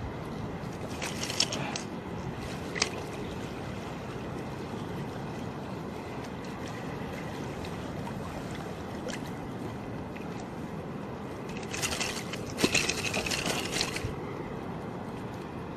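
Steady rush of shallow reef water and wind, with bursts of splashing about a second in and again for a couple of seconds near the end, and a single sharp click about three seconds in.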